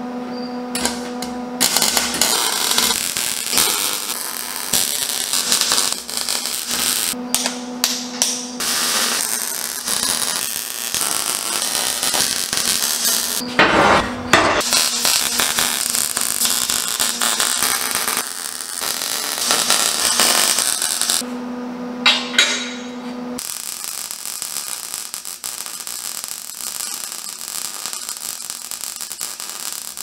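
MIG welder crackling and sizzling as the arc lays welds on steel tubing. The welding comes in several long runs, broken by short pauses in which a steady hum is heard.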